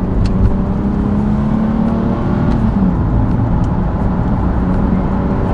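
Nissan 370Z Nismo's 3.7-litre V6 running at low revs in light cruising, a steady engine drone over road rumble. Its pitch rises gently, then falls back about two and a half seconds in.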